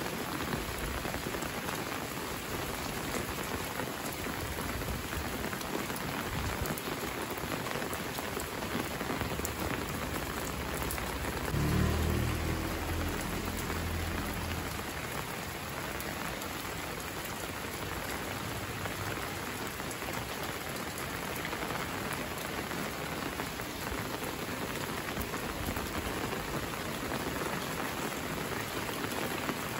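Steady rain falling on a wet paved lane, an even hiss of drops throughout. About twelve seconds in, a brief low rumble rises under the rain and fades within a couple of seconds.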